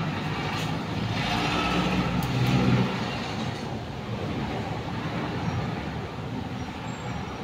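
Motor vehicles driving past on the street, a steady traffic noise that swells louder about two to three seconds in as one vehicle passes, then eases.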